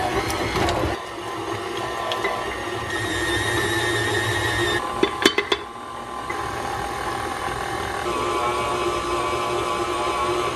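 KitchenAid Artisan stand mixer running, its motor whirring steadily as the flat beater creams butter and sugar in a ceramic bowl; the whine shifts in pitch partway through. A quick run of sharp clicks about five seconds in.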